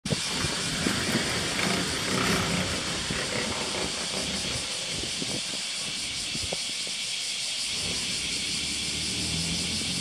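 Outdoor ambience: a steady high hiss throughout, with low rumbling and a few low knocks in the first three seconds.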